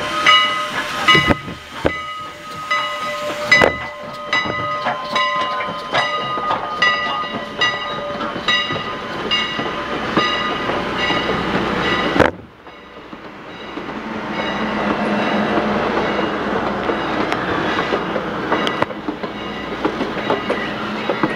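Railroad car wheels clicking over rail joints in a steady clickety-clack, about two clicks a second, with ringing metallic tones. About twelve seconds in the sound cuts off abruptly and is replaced by a steadier rolling rumble of the train.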